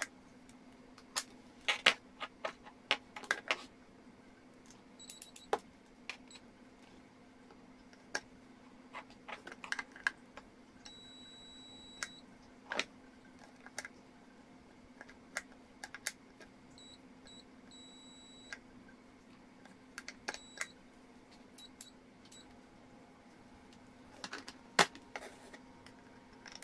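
Irregular light clicks and taps as multimeter test probes are pressed against the metal contacts of a steam iron's plastic base and plug, checking the resistance. A few short high electronic beeps come from the digital multimeter, one held for about a second.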